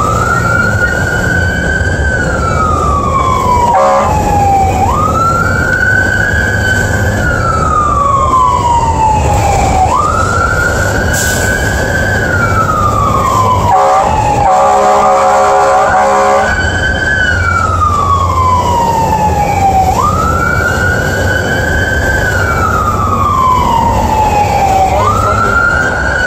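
Fire engine's siren wailing, heard from inside the cab: each cycle rises quickly and then falls slowly, repeating about every five seconds, over the low drone of the truck's engine and road noise. A steady horn blast of about two seconds sounds about halfway through.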